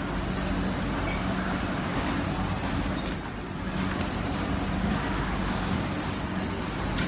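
Steady factory-floor machinery noise from a PCB assembly line: an even hiss over a low hum. A faint high-pitched tone sounds briefly twice, about three seconds apart.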